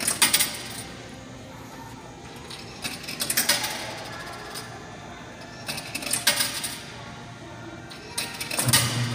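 Coins dropping into the coin mechanism of a 1996 Kiddie's Manufacturing Snoopy ice cream truck kiddie ride: four clinking rattles a few seconds apart. Just before the end the ride starts up with a steady low-pitched sound.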